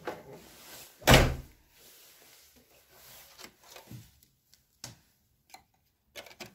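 A door shutting with a heavy thud about a second in, followed by a few faint clicks and knocks.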